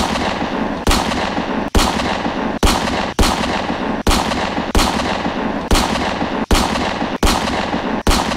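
A run of recorded gunshot sound effects: about eleven heavy shots, a little under a second apart at uneven gaps, each ringing out in a long echoing tail.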